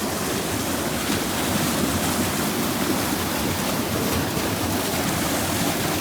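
Rushing river water: a steady, even rush with no breaks.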